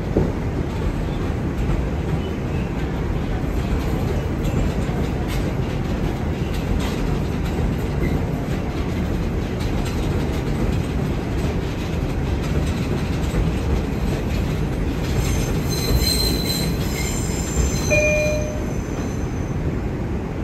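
R142 subway train running on the elevated track, heard from inside the car: a steady rumble of wheels on rail with clicks over rail joints, and brief high-pitched wheel squeals in the later part.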